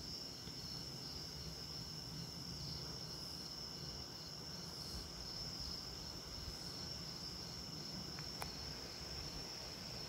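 Crickets chirping: a steady high trill, with a second insect pulsing just below it a few times a second.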